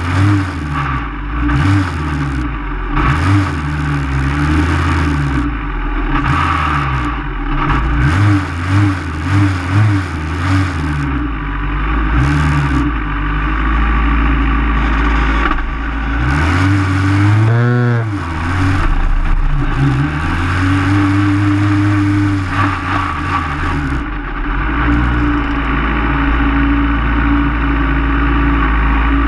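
Hill-climb race car's engine heard from inside the open cockpit, running at idle with short, uneven throttle blips for the first ten seconds or so. A little past halfway it revs up and back down once, then settles into a steadier idle as the car creeps forward to the start.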